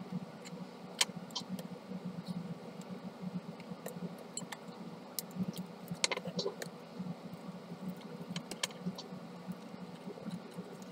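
Small plastic clicks and taps from the parts of a Kyocera toner cartridge's drum unit being handled and fitted by hand. The clicks are scattered and irregular, with a short cluster about six seconds in, over a steady low hum.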